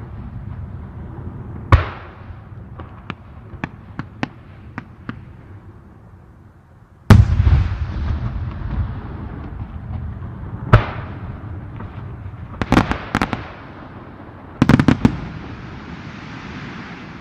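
Fireworks bursting overhead. A sharp bang is followed by a quick run of small crackling pops, then a deep boom rumbles on for several seconds, and clusters of rapid bangs come near the end, followed by a hissing crackle.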